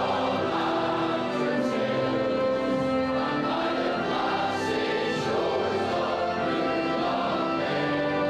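A large choir of teenage boys singing together in long, held notes.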